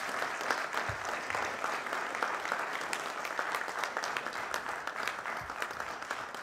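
Audience applauding, many hands clapping at once, easing off slightly toward the end.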